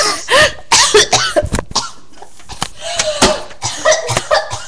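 A girl coughing in a fit of many short, harsh bursts, some of them voiced.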